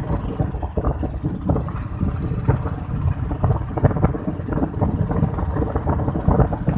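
Royal Enfield Bullet single-cylinder motorcycle running on the move, heard under heavy wind buffeting on the microphone.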